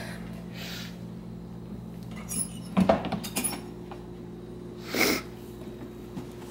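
Plastic pet carrier being handled, its wire door shut: a few knocks and rattles about three seconds in and a brief rustle near the end, over a steady low hum.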